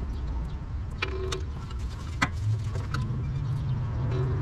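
A few sharp metallic clicks and clinks of hand tools and parts being worked on a car's engine mount, over a low steady rumble.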